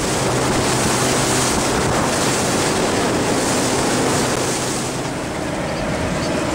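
Steady wind rushing over the microphone and sea wash, with a boat engine running low underneath.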